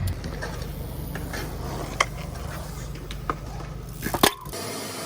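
A steady low background rumble with a few scattered clicks and knocks, the loudest about four seconds in, after which the rumble drops away.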